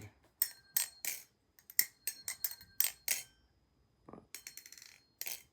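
Balisong (butterfly knife) being flipped: a quick, irregular run of sharp metal clicks and clacks, each with a short ring, as the handles swing and strike around the blade.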